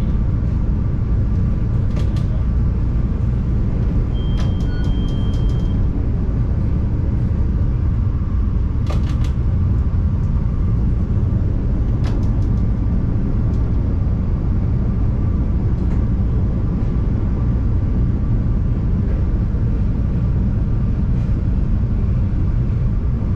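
CTA Yellow Line rapid-transit train running at speed, heard from inside the car: a loud, steady rumble with short clicks from the running gear scattered through it. A brief high steady tone sounds for about a second and a half, about four seconds in.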